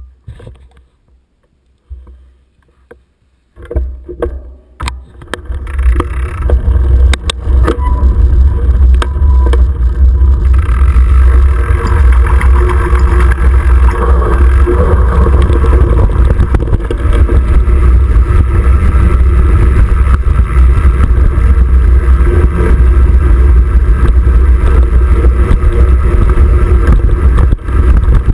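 Wind buffeting a handlebar-mounted action camera's microphone as a 29er mountain bike rides a dirt trail, with knocks and rattles of the bike over the ground. Fairly quiet with a few clicks at first, then from about four seconds in a loud, steady low rumble.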